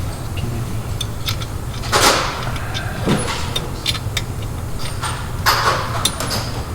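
Scattered clinks, ticks and scrapes of hand tools and metal parts being handled while bolting a suspension bracket, over a steady low hum. The louder scraping comes about two seconds in and again near the end.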